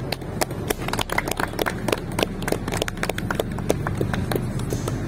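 A small group clapping by hand: scattered applause with separate claps heard, a few each second, over a low steady hum.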